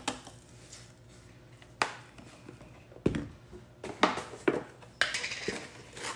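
A few separate sharp plastic clicks and light knocks as spice containers are capped, handled and set down on a countertop, with one duller knock about three seconds in.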